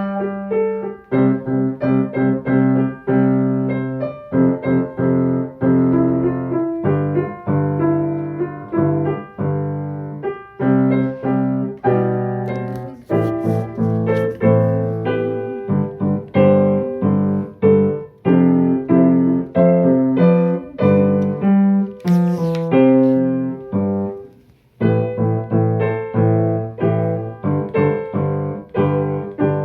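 Solo piano playing a pop-song arrangement, with repeated bass notes under a melody line. About 25 seconds in the playing breaks off for a moment and then resumes.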